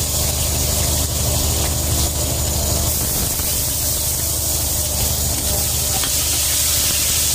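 A fishing boat's engine runs steadily with a low drone. Over it is an even hiss from the onions and garlic cooking in oil in a pot on a gas burner.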